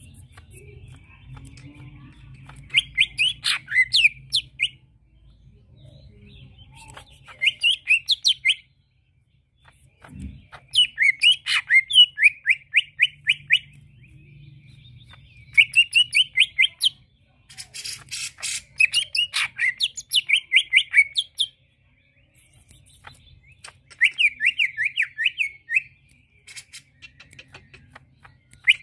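Male greater green leafbird (cucak ijo) singing: about six phrases of rapid, chattering repeated notes, each a few seconds long, with short pauses between. A faint low hum underlies it, and one soft thump comes about ten seconds in.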